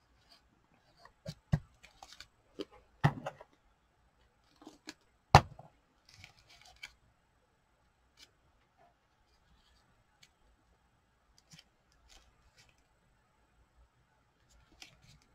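Craft supplies handled on a desk: a scattered run of light taps and clicks, the loudest about one and a half, three and five seconds in, as a glue bottle and paper pieces are picked up, set down and pressed into place.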